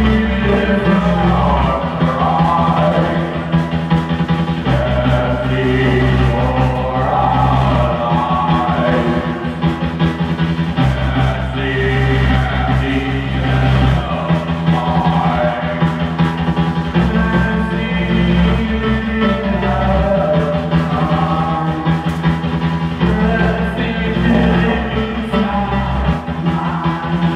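Rock band playing a song live, a singer's voice over guitar, bass and drums, the bass and chords shifting every few seconds.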